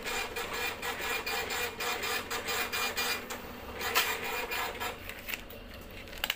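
Receipt printer printing with a fast, even chatter, with a sharp click about four seconds in. The printing stops a little after five seconds.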